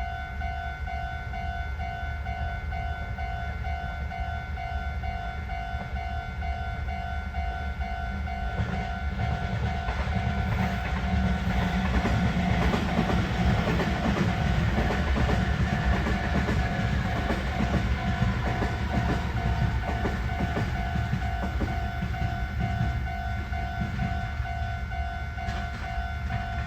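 Railway level-crossing alarm bell ringing in steady, even pulses, while a Meitetsu electric train passes over the crossing. The train comes in about a third of the way through, its wheels clattering over the rail joints, is loudest in the middle and fades near the end.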